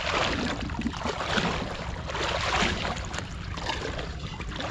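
Water lapping and splashing irregularly against the hull of a wooden boat as it moves through shallow wetland water, over a steady low rumble.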